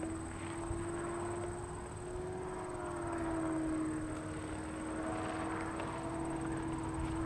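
Light aircraft's engine and propeller droning steadily, with small shifts in pitch.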